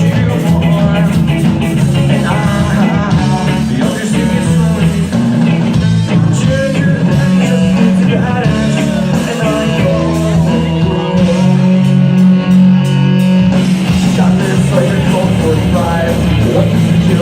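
Live rock band playing loudly, with electric guitar over a steady bass line.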